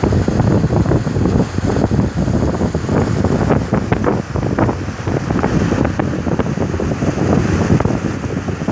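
Wind buffeting the microphone and water rushing along the hull of a moving longboat, with the boat's motor running underneath.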